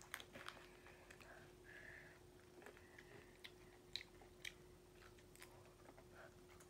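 Faint chewing of chocolate candy, with a few soft clicks between about three and five seconds in, over a faint steady hum.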